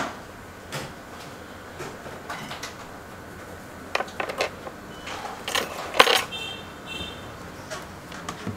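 Hot air rework gun blowing steadily onto a BGA reballing stencil, reflowing the solder on the chip, with scattered clicks and knocks of tools on the bench, the loudest about six seconds in. Two short beeps follow just after it.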